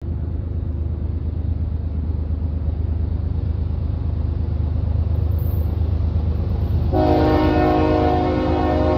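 Approaching CSX diesel freight locomotive, a steady low rumble that grows a little louder. About seven seconds in, its horn starts blowing, a chord of several steady tones.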